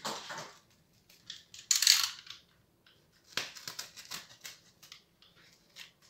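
Plastic cling film crinkling as it is pulled off its roll and stretched out, loudest about two seconds in, then a run of quick sharp crackles as the film is cut off the roll with a blade.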